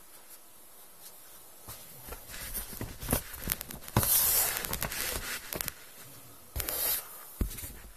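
Hands handling an inflated vinyl Intex Atlantic 100 boat: irregular rustles, squeaks and clicks of the vinyl, with a loud hissing rustle about four seconds in and another shorter one near the end.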